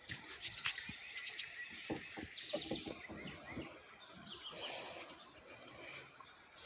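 Outdoor creek ambience: birds chirping over a steady high insect-like hiss, with a run of light knocks in the first few seconds and a few quick high chirps near the end.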